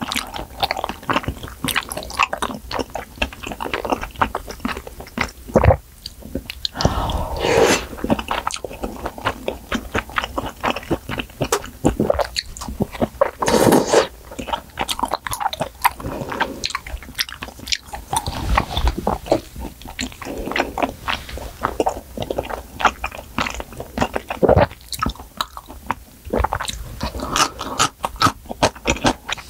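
Close-miked chewing and biting of malatang: a steady run of small wet mouth clicks, with a few louder moments.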